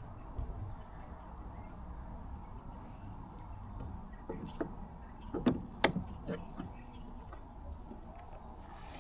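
A handful of knocks and clicks of hand tools and bolt hardware against a plastic kayak hull, clustered about halfway through, the two loudest about half a second apart, over a low steady rumble.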